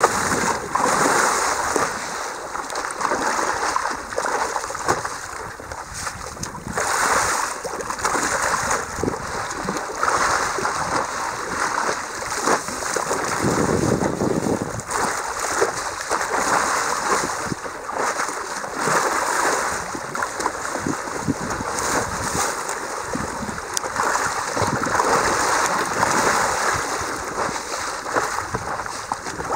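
Sea water lapping and splashing against the hull of a windsurf raceboard in light chop, swelling in surges about every two seconds.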